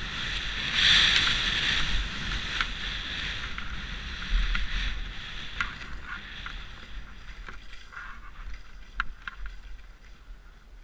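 Skis hissing through snow with wind rushing over a GoPro Hero3+ action camera at speed, loudest in the first couple of seconds and dying down near the end. Scattered sharp clicks and knocks sound through the rush.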